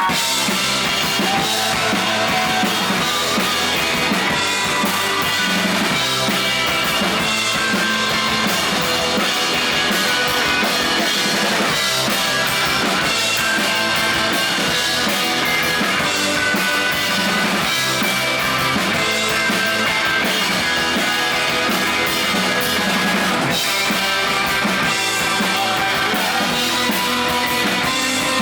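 Loud rock music with a full drum kit, bass drum and guitar playing steadily.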